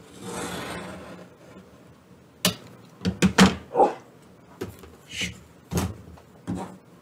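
A rotary cutter rolls through T-shirt knit along an acrylic quilting ruler, making a soft hiss that fades out about a second and a half in. Then come a series of knocks and plastic clacks as the cutter is set down and the ruler is lifted and slid across the cutting mat.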